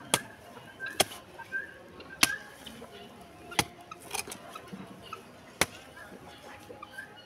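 Hoe blade chopping into soil, about six dull strikes at uneven intervals of roughly a second or more.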